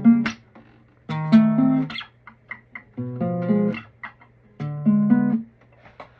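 Classical guitar playing a short chord figure on the bass strings three times, each plucked chord sliding to a second chord before dying away. It is the 'mystery' chord, the kind of sound heard in action or mystery movies.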